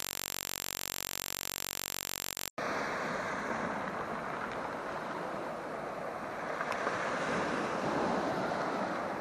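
A steady electronic tone cuts off about two and a half seconds in. It gives way to sea waves breaking and washing over a stony shore, a continuous rushing that swells a little, with some wind on the microphone.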